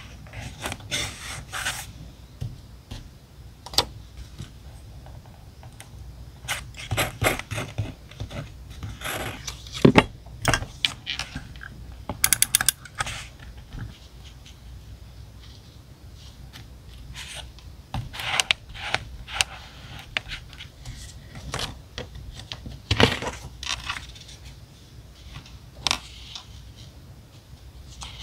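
Paper and stationery handled on a desk during diary decorating: scattered taps, rustles and short scrapes, with a quick run of clicks about twelve seconds in.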